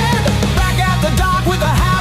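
Background rock music with a heavy, distorted sound and a strong bass line.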